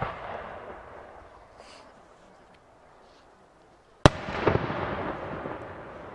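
Aerial firework shell bursting with one sharp bang about four seconds in, followed by a few smaller pops and a rolling echo that slowly fades. Before it, the echo of an earlier burst dies away.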